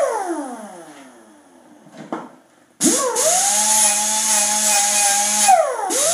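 Handheld electric grinder working a length of 1-inch steel tubing. Its motor winds down at the start, there is a click in the pause, then it spins back up about three seconds in and runs at a steady whine with a hiss from the disc on the steel. Near the end it dips briefly and picks up again.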